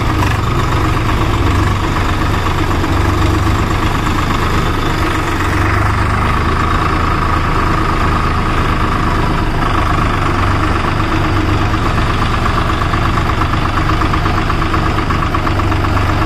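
Swaraj 744 FE tractor's three-cylinder diesel engine running steadily at low revs, heard from the driver's seat as the tractor moves slowly.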